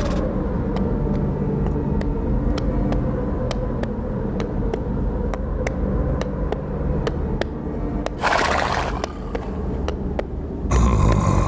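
A low, steady rumbling drone with faint scattered clicks, a short breathy burst about eight seconds in and a louder one near the end.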